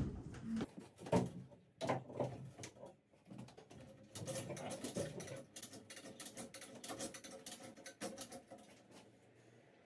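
A few knocks, then a hand-pulled chain hoist being hauled: about five seconds of rapid clicking and chain rattle as it lifts the engine off its mounts.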